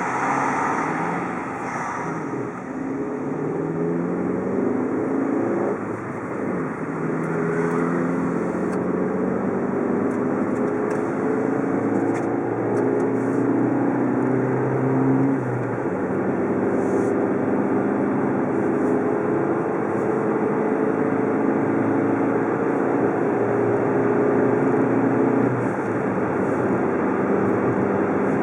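Car engine accelerating away from a standstill: its pitch climbs and drops back several times as it shifts up through the gears. It then settles into a steady drone with road noise at highway speed.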